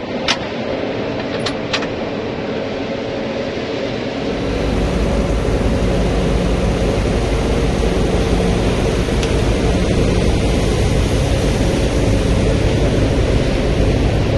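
Large diesel engine of farm harvest machinery running steadily under load with a broad hiss, getting louder and deeper about four seconds in. A few sharp clicks sound in the first two seconds.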